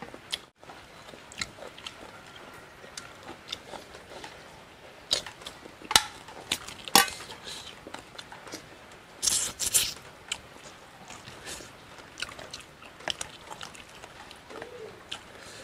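Close-up mouth sounds of a person eating frog curry by hand: biting and chewing on crisp frog pieces, with a series of sharp crunches. The loudest crunches come about halfway through, and there is a dense crackling burst a little later.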